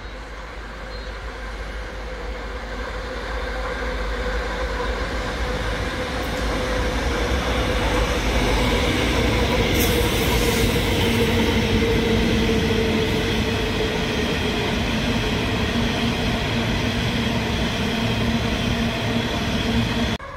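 Pacific National diesel locomotives hauling a coal train, their engines growing louder over the first several seconds as they approach, loudest as they pass about ten seconds in with a steady engine hum, then the coal wagons rolling by on the rails.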